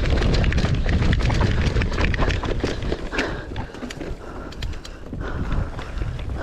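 Mountain bike rolling over a rough dirt trail: a steady rumble from the tyres and wind with quick rattles and knocks from the bike over bumps. It eases off a little around the middle and then picks up again.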